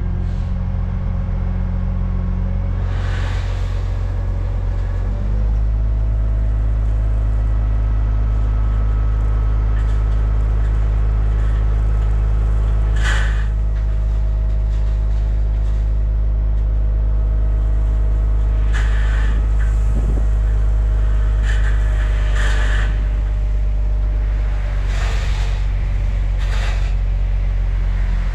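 Heavy dump truck's diesel engine running steadily, its pitch stepping up about five seconds in and holding there, with several short noisy bursts over it.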